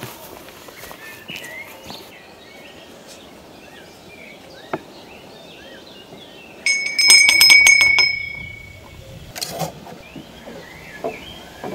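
Birds chirping throughout. About seven seconds in, a small metal bell rings rapidly for about a second and a half and then rings out, and a few knocks follow near the end.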